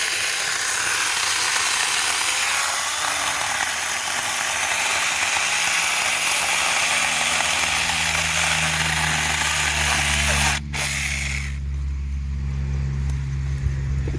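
Cordless 4-inch electric mini chainsaw cutting through wood, the chain making a loud, steady cutting noise. About eleven seconds in the cutting noise stops and the motor keeps running with a steady low hum.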